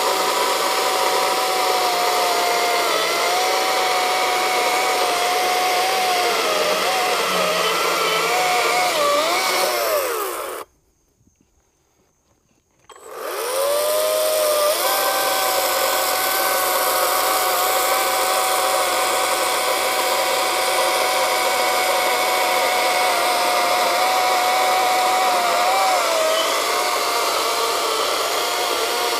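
Atlas 40V brushless battery chainsaw cutting firewood rounds from a log. Its steady high motor whine sags and wavers in pitch as the chain works through the wood. The whine cuts off about ten seconds in and winds back up a couple of seconds later for the next cut.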